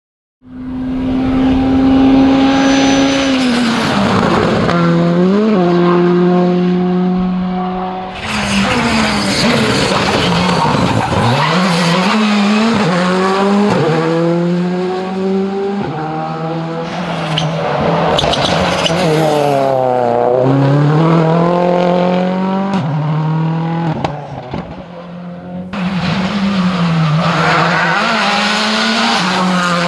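Škoda Fabia Rally2 rally cars driving a stage at speed, heard in several short clips in a row: engines revving up and dropping back through quick gear changes, with a few sharp cracks from the exhaust.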